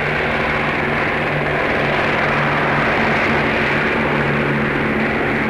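The Short Shetland flying boat's four Bristol Centaurus radial engines droning steadily at take-off power as it races across the water. A loud, even rushing noise sits over a low, steady hum.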